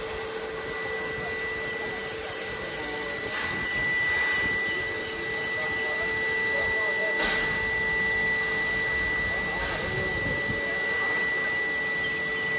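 NSWGR 59 class steam locomotive 5917, a 2-8-2, standing in steam: a steady hiss with a high, even whine, and a few brief louder surges of hiss.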